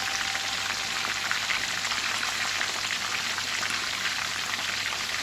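Steamed chicken legs frying in hot oil: a steady dense crackle and sizzle with fine spattering pops.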